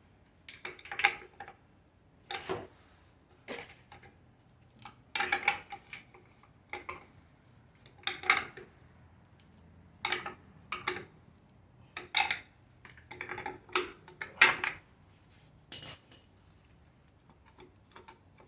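Pry bar clanking and scraping against a stuck part on a Ford 4.6 2V V8 engine as it is levered loose, in short irregular metal strikes every second or so.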